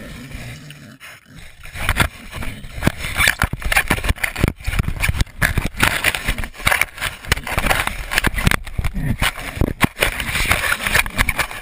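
A pig nosing and mouthing a camera at close range: scraping, rubbing and knocking right on the microphone, with many sharp clicks. It gets loud from about two seconds in.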